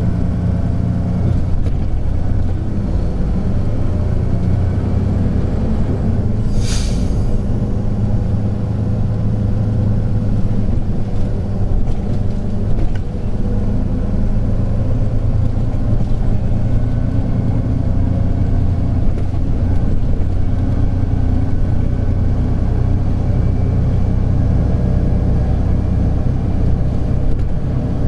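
Hino P11C straight-six diesel of a 2001 Hino Blue Ribbon City non-step city bus running under way, heard from inside the cabin with the windows half open, its pitch rising and falling gently with load. A brief hiss about a quarter of the way in.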